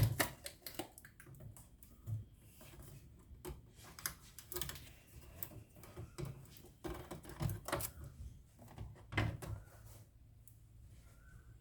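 Irregular clicks, taps and light knocks with some rustling: packaging and parts of a new cutting machine being handled by hand.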